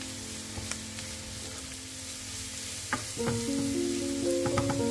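Chopped onion and grated carrot sizzling in a frying pan, stirred with a wooden spoon that scrapes across the pan a few times, mostly in the second half. Background music plays throughout.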